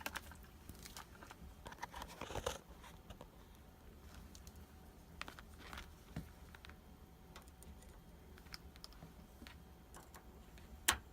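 Faint scattered clicks and scrapes of multimeter test probes being set against the metal terminal screws of a water heater thermostat, with a sharper click near the end.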